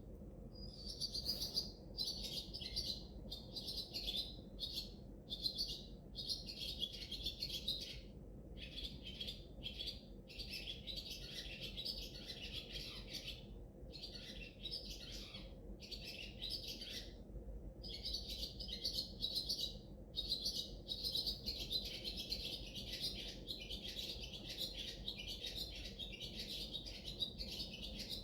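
Birds chirping almost continuously: dense runs of rapid high notes, broken by short pauses every few seconds.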